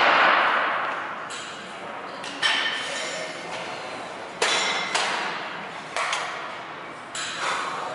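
Metal gym weights clanking: a loud clank at the start that rings away, then about five more sharper clanks a second or so apart, each ringing briefly.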